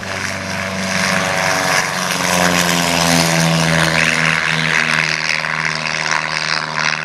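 Small single-engine propeller airplane making a low, fast pass overhead, its engine and propeller drone loud and steady, with the pitch dropping as it goes by about halfway through.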